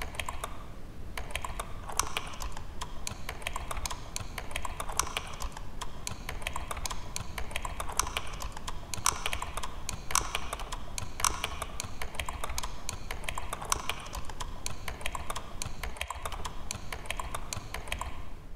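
Continuous typing on a computer keyboard: a dense, uneven run of key clicks, some strokes louder than others.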